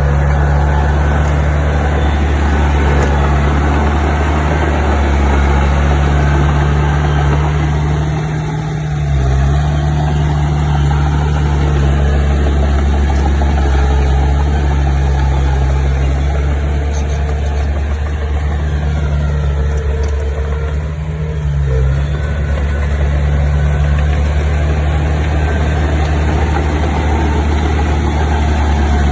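Heavy construction machine's diesel engine running steadily with a deep drone, dropping briefly twice.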